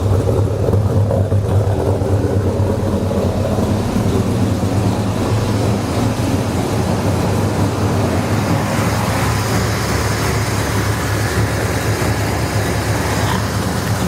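1969 Chevrolet Chevelle SS's 502 big-block crate V8 running at a steady idle through full dual exhaust with an X-pipe and Flowmaster mufflers, still warming up after a cold start. A brighter hiss joins it about nine seconds in.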